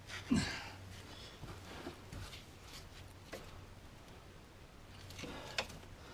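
Metal hand tool working on the brake caliper guide pins: a sharp clank about a third of a second in, a few light clicks, and another sharp knock near the end, over a faint steady low hum.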